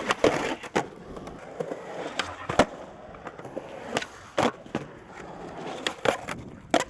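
Skateboards rolling on concrete, the wheels giving a steady rumble, broken by a string of sharp clacks of boards hitting the ground.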